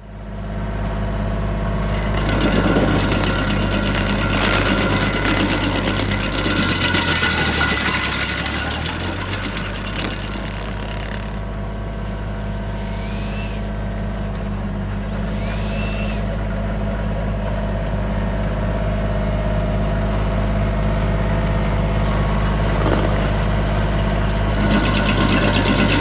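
An engine running steadily. Its speed drops for a couple of seconds about seven seconds in, then comes back up.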